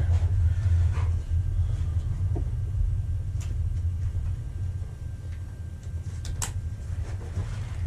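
Steady low rumble, with a few sharp clicks and rustles from a nylon tactical vest being handled, the clearest about three and a half and six and a half seconds in.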